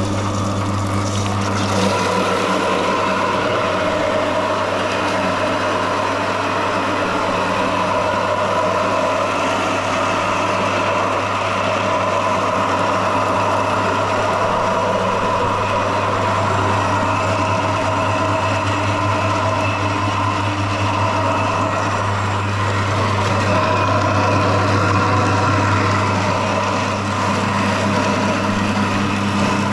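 Soybean dehulling machine running steadily, its motor humming while it grinds soaked soybeans with water to strip off the skins.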